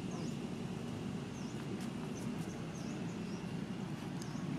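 Outdoor ambience: a steady low rumble, with short, high chirps about four times.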